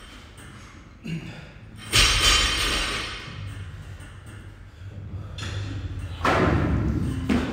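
Heavy thuds: a small knock, then a loud thud about two seconds in that rings on briefly, and two more near the end.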